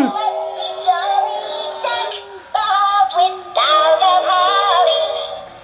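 Animated plush Christmas tree dancing doll singing a Christmas song through its built-in speaker: a high, synthetic-sounding sung melody over a music backing, with almost no bass and two short breaks.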